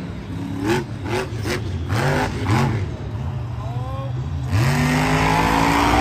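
Monster truck's supercharged V8 engine revving up and down in short blips, then from about four and a half seconds held at high revs under a louder, steady rush of noise.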